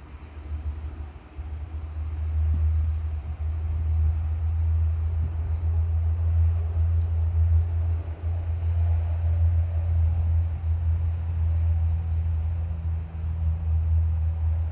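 Storm wind buffeting the microphone: a heavy, unsteady low rumble that swells about a second and a half in and stays up. Faint high chirps repeat over it.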